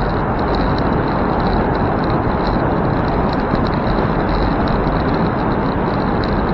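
Steady rush of car traffic echoing inside a road tunnel, heard from a moving bicycle with wind rumbling on the microphone.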